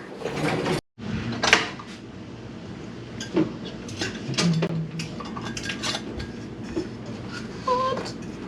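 Metal canning lids and screw bands clinking and tapping against glass jars as the lids are set on and screwed down, a run of scattered light clinks.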